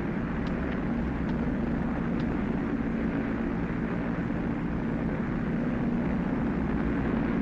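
Twin-engine Vickers Wellington bomber's engines running steadily in flight, an even, unbroken drone on an old film soundtrack with a few faint ticks in the first couple of seconds.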